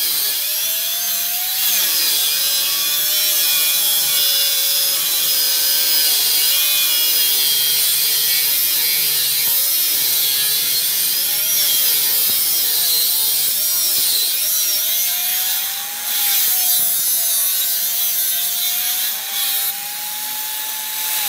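Angle grinder mounted in a chop-saw stand cutting through rectangular steel tube with an abrasive cutoff disc: a harsh grinding with the motor's whine dipping and recovering as the cut loads it. Near the end the whine climbs as the load comes off, then falls away as the grinder winds down.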